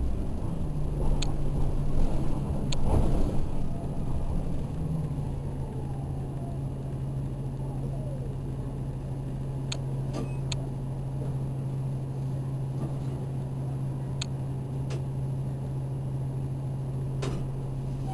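Inside an Orion VII Next Generation hybrid city bus as it slows and stands at a stop. The drivetrain gives a steady low hum, with louder road and body noise over the first few seconds and scattered sharp clicks and rattles from the cabin.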